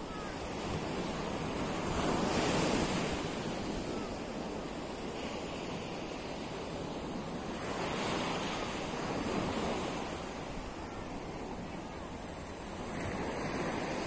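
Black Sea surf washing onto a sandy beach, rising and falling every few seconds, with wind rumbling on the microphone.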